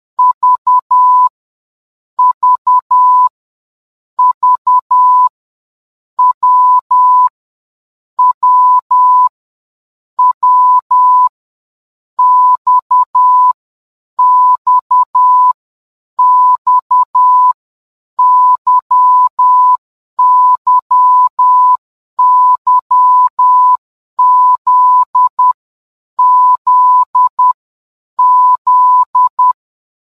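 Morse code letters sounded as a steady electronic beep tone keyed in short and long pulses (dots and dashes). One letter's group of beeps comes about every two seconds, with silence between the groups.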